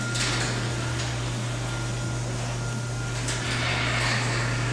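Electric garage door opener running, a steady low motor hum as the sectional door travels on its tracks, now working after being programmed.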